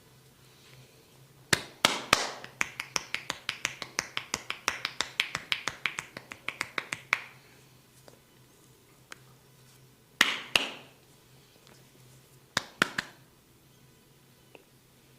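Sharp finger snaps from a barber's hands during a head and ear massage: a quick run of about two dozen snaps, about four a second, then a pair of snaps and, near the end, another two or three.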